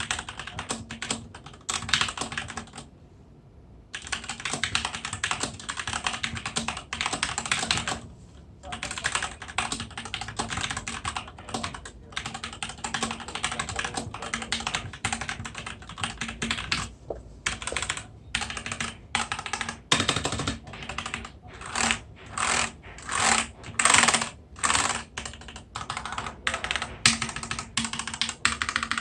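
Typing on a SteelSeries Apex M750 TKL mechanical keyboard with QX2 Red linear switches: a fast, dense run of keystrokes with a short pause about three seconds in. In the last third the keystrokes come in separate clusters.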